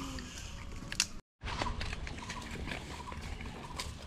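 Gray langur monkeys rustling dry leaves and handling a cardboard box of biscuits, a run of small clicks and rustles over steady outdoor background noise. The sound cuts out completely for a moment about a second in.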